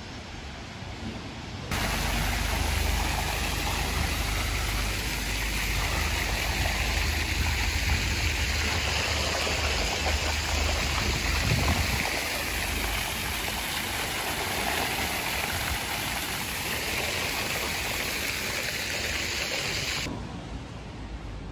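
Steady outdoor street noise: an even hiss with a low rumble through the first half. It starts abruptly about two seconds in and cuts off abruptly near the end.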